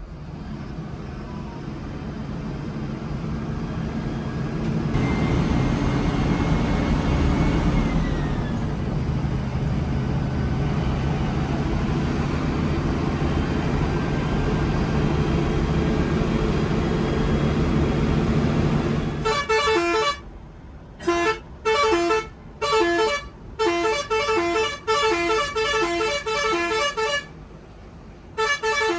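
Steady road and engine rumble of a moving bus, swelling up over the first few seconds. About two-thirds of the way in it cuts off abruptly to electronic music with a chopped, stuttering synth line.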